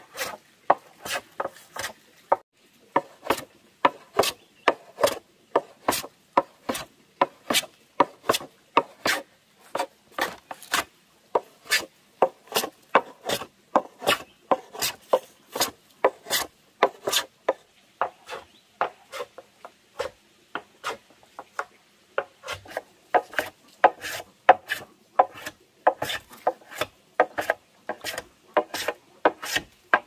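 Hand saw cutting through a wooden board in steady back-and-forth strokes, about two a second.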